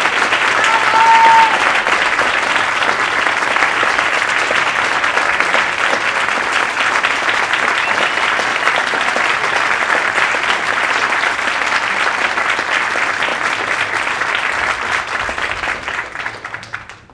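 Audience applauding steadily for the dancers' bows, with a brief cheer about a second in; the clapping thins out and dies away near the end.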